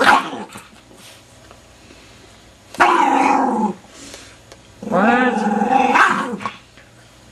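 A dog's drawn-out growling vocalizations during rough play: a short one right at the start, then two long pitched growls, the second longer, with short pauses between.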